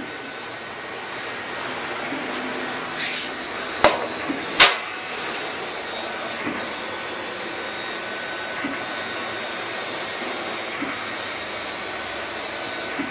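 CNC router running: a steady whirring hiss with a faint high whine, and two sharp knocks about four seconds in.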